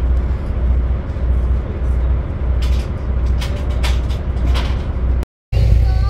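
Boat engine running under way with a steady low rumble, with faint voices in the middle and a short silent gap near the end.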